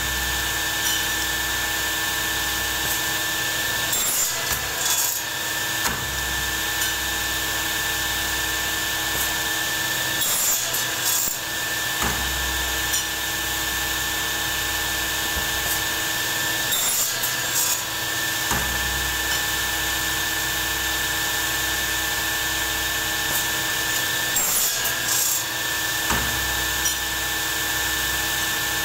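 Industrial machine running steadily with a constant whine, broken by a short clatter of knocks about every six to seven seconds.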